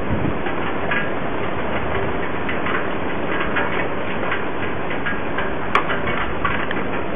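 Strong storm wind rushing through tossing trees and buffeting the camcorder's microphone, a steady loud noise with scattered sharp clicks, one sharper near the end.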